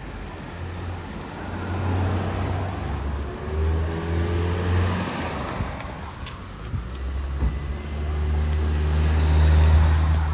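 Road traffic on a wet city street: motor vehicles passing with a low engine rumble and tyre hiss. It swells twice, the second vehicle loudest near the end.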